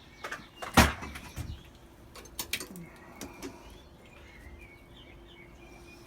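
A handful of sharp knocks and clanks, the loudest about a second in with a low thump. Then birds chirping over a faint steady hum.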